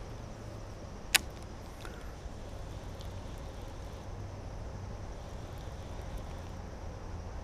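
A baitcasting reel gives one sharp click about a second in, over a steady low rumble.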